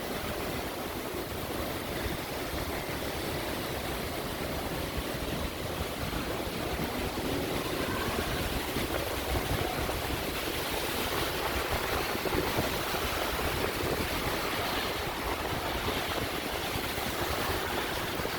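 Heavy rain and wind: a steady rushing noise that stays even throughout.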